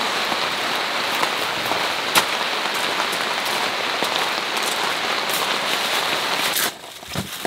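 Steady, heavy rain falling, with scattered sharper drop impacts; the sound cuts off abruptly near the end.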